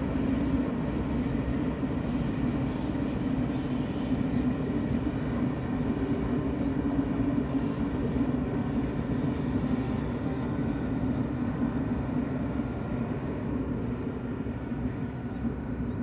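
KTX high-speed train running along the line, a steady rolling noise that eases slightly near the end.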